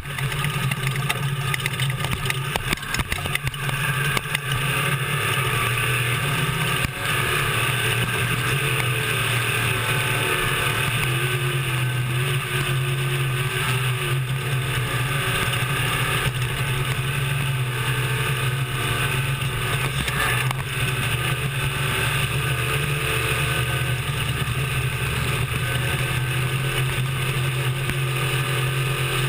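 Class 1450 desert race truck heard from on board, its engine running hard at a fairly steady pitch under heavy wind and road noise. Sharp knocks and rattles come through during the first several seconds.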